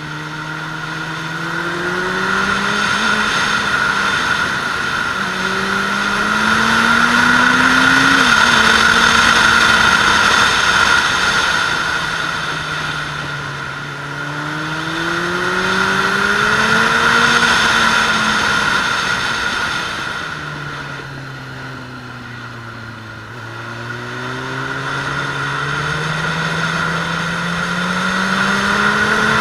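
Suzuki Bandit 600S's inline-four engine pulling hard and easing off again as the bike is ridden round a race track. Its pitch rises and falls several times, with a sudden drop about eight seconds in like a gear change. Wind rush on the helmet-mounted camera swells and fades with the speed.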